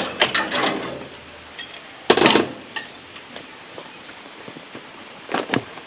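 Steel parts of a McConnel mobile sawbench clanking and rattling as they are unlatched and shifted by hand to convert the saw from crosscut to table mode. The clanks come in three bunches: at the start, about two seconds in (the loudest), and near the end.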